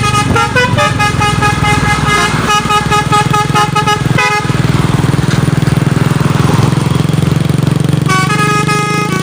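Truck's basuri telolet air horn playing a tune of stepped, held notes over the low rumble of the truck's engine. The horn breaks off a little after four seconds, leaving the engine rumble and a hiss, then resumes near the end.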